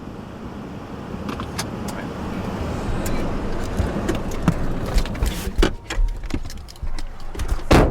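A car pulling up, its noise growing louder, with scattered clicks and rattles and a loud thump near the end.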